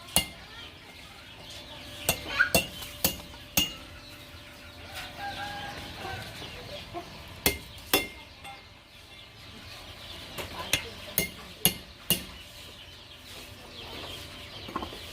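Irregular sharp metallic taps, about a dozen, coming in small clusters, of a hand hammer on the metal of a cow bell being restored. Chickens cluck in the background.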